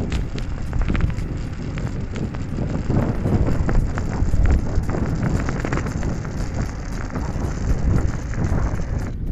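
Heavy wind buffeting on a phone microphone while riding an electric scooter, with frequent small clicks and rattles as it rolls over rough asphalt.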